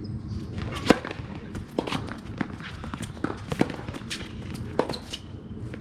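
Footsteps and scattered sharp knocks of a tennis ball on a tennis court, with a brief high shoe squeak near the end.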